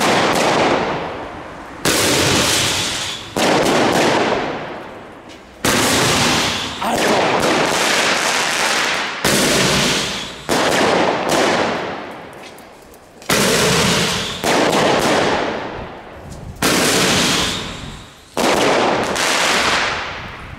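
Vegro Snake Bite fan-shaped firework battery firing a sequence of shots, about ten in all, roughly one every one to two and a half seconds, a few in quick pairs. Each shot is a sudden bang followed by a long, fading hiss of burning effects.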